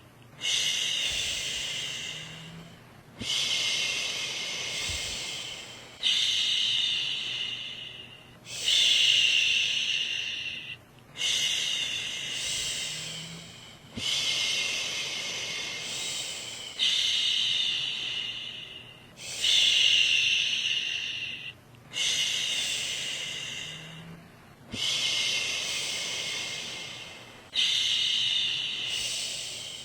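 A woman shushing a baby to sleep: long, repeated "shhh" sounds about every two and a half seconds, each starting loud and tailing off, with short pauses between.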